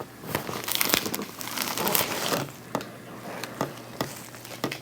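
Paper crinkling and rustling for about two seconds, then five separate sharp clicks, as a patient shifts on a chiropractic treatment table.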